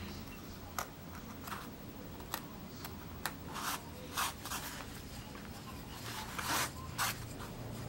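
Small woodcut knife cutting and scraping shavings out of a plywood block by hand, in short, irregular strokes, with a couple of longer cuts about four seconds in and near the end.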